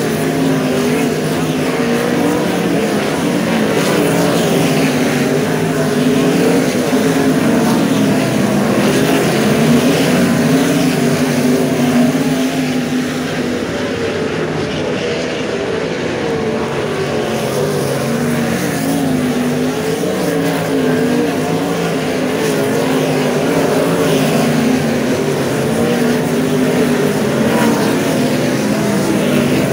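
A field of 410 winged sprint cars racing on a dirt oval, several V8 engines running at once. Their pitches keep rising and falling as the cars go through the turns and down the straights.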